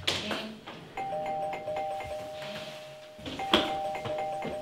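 Electronic doorbell sounding a held two-tone chime, rung twice, over a few sharp knocks and bumps as a wardrobe door is pulled shut; the loudest knock comes a little past halfway.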